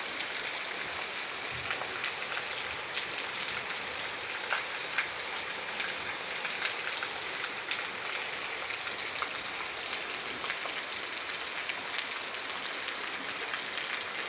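Heavy rain falling steadily, a dense hiss with many individual drops ticking sharply on a hard surface.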